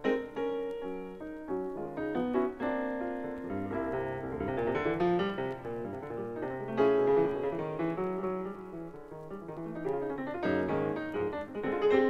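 Solo jazz piano, chords and runs played back from a vinyl LP.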